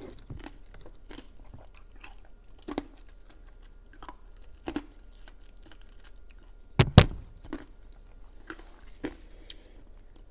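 Close-miked mouth sounds of someone chewing food, with scattered soft clicks and one louder thump about seven seconds in.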